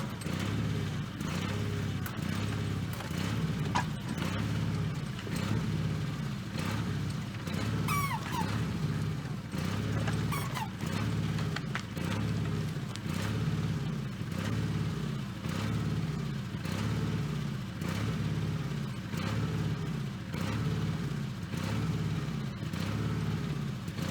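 Small backhoe's engine running steadily, its note rising and falling about once a second, with a few faint clicks over it.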